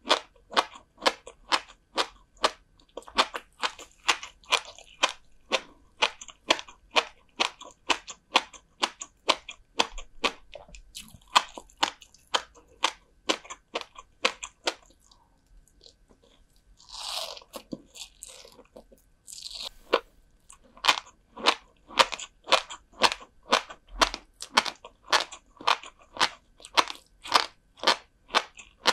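Close-miked chewing of salted herring roe (kazunoko): crisp, rhythmic crunches about three a second. The chewing pauses for a few seconds in the middle, with two softer rustling sounds, then resumes.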